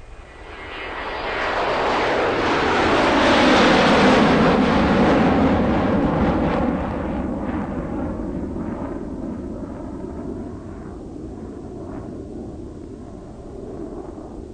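A loud rushing roar that builds over the first few seconds, peaks about four seconds in, then slowly fades away.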